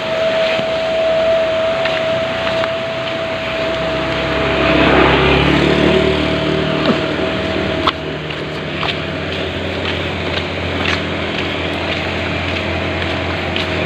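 A motor vehicle's engine running close by, swelling loudest about five seconds in and then holding a steady low hum. A steady high-pitched tone sounds over it for the first half, and there are scattered sharp knocks.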